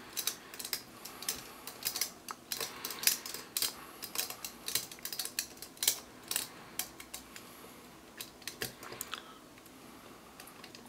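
Irregular small metal clicks and taps of a hand screwdriver turning a small screw back into the aluminium valve plate of an air compressor's cylinder head, dense at first and thinning out near the end.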